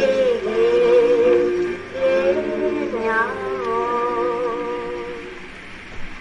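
A voice singing a slow melody in long, wavering held notes, dying away about five seconds in.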